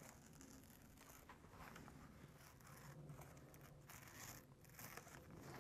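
Faint, intermittent scratching and tearing of old, brittle paper as a pointed tool is worked under the firmly glued flap of a paper pattern envelope to slit it open.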